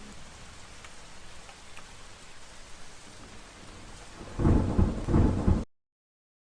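Steady rain falling, then a loud clap of thunder rumbling in at about four and a half seconds. The sound cuts off abruptly a second later.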